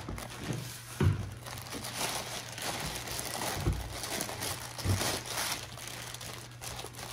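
Thin printed plastic wrapping crinkling and rustling as it is pulled off a die-cast model locomotive and tender, with a few dull knocks about a second in, near the middle and past the middle.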